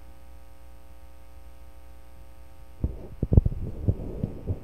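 Steady electrical mains hum from the recording setup. From about three seconds in, a series of irregular low thumps and knocks comes in over it.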